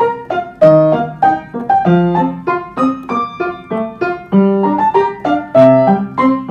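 Background piano music: a quick melody of single struck notes, each one fading, about three notes a second.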